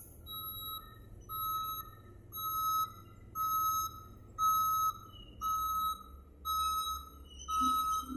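Reversing alarm of a Caterpillar 740B articulated dump truck backing up: a steady high beep repeating about once a second, eight times. Under it runs a low engine rumble that grows louder about six seconds in.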